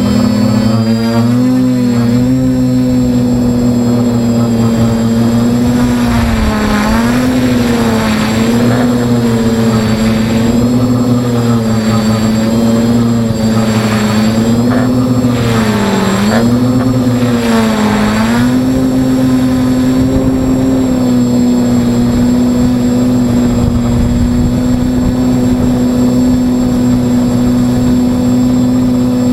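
Multirotor drone's electric motors and propellers running close to the onboard microphone, a loud steady hum. Its pitch wavers up and down again and again as the throttle changes through the first two-thirds, then holds level.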